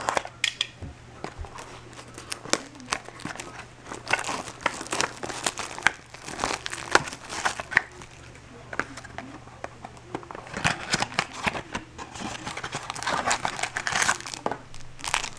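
Plastic trading-card pack wrappers crinkling and tearing as packs are ripped open by hand: a dense run of irregular crackles, busiest around the middle and again near the end.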